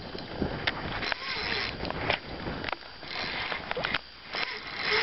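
Water lapping and wind noise around a small fishing boat, coming in irregular swells, with a few light clicks and knocks.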